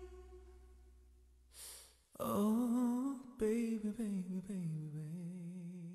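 The song's backing music dies away, then after a short breath a solo male voice sings unaccompanied with vibrato, in a few short phrases ending on a long held low note.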